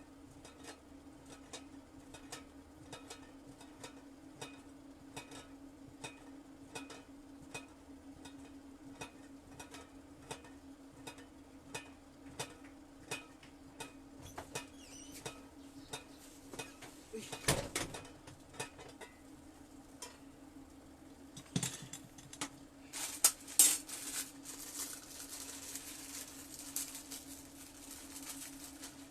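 Cookware and utensils clinking and clattering on a makeshift electric heater stove, over a steady low hum and a soft, regular ticking. The loudest knocks and clatter come a little past the middle, and a hiss builds near the end.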